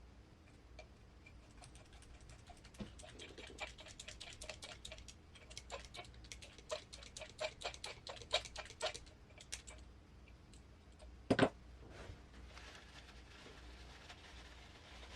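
Small hard parts of an RC crawler transmission clicking and tapping as they are handled and fitted by hand: a run of quick light clicks for several seconds, then a louder double knock about eleven seconds in, as of a part set down on the bench.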